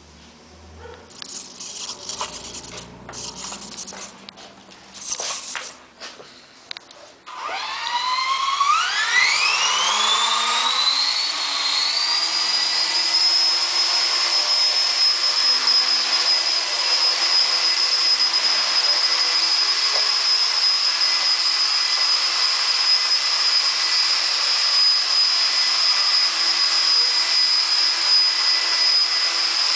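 Small electric RC helicopter (HK250GT) spooling up: after a few short noisy bursts, the motor and rotor whine rises steeply in pitch over about five seconds from about seven seconds in, then holds a steady high whine at flying speed.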